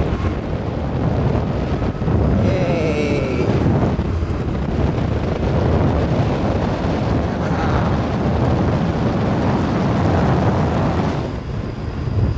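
Motorcycle on the move, its engine running under heavy wind noise on the microphone.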